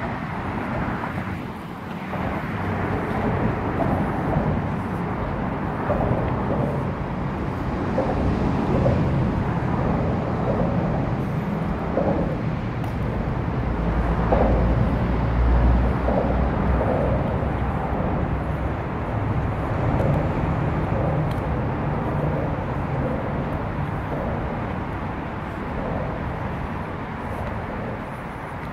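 Steady rumble of road traffic on the overpass above, with a deeper rumble swelling about halfway through as a heavy vehicle passes over.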